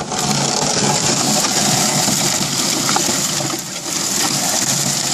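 Electric mobility-scooter drive motor running steadily as the small car pushes through tall grass and brambles, with vegetation brushing along its body; the sound eases briefly about three and a half seconds in.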